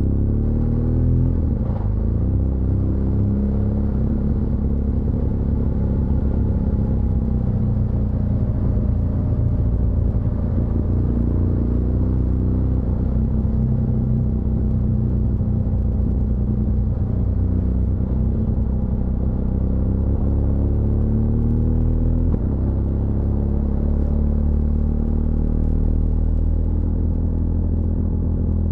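BMW R1200GS LC Adventure's boxer-twin engine running as the motorcycle is ridden. Its pitch drops sharply about two seconds in, then holds and wanders, and climbs steadily from about three quarters of the way through.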